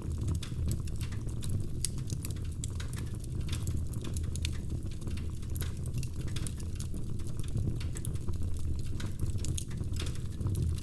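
Wood fire crackling in a fireplace: many irregular small pops and snaps over a steady low rumble of the flames.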